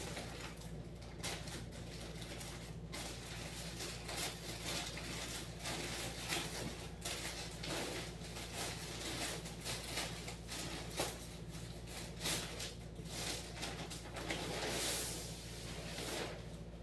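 Plastic packaging rustling in uneven bursts as a black plastic mailer parcel is opened by hand, with a few sharp clicks; near the end a wetsuit in a clear plastic bag is pulled out with a longer rustle.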